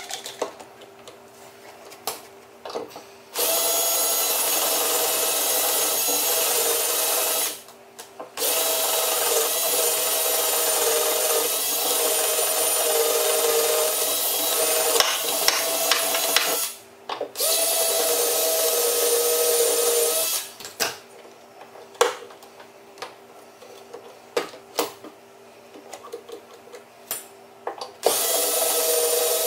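Cordless drill running into wooden boards in long steady runs of several seconds each, the longest about eight seconds, with short pauses between them. Small clicks and knocks of handling fill the pauses.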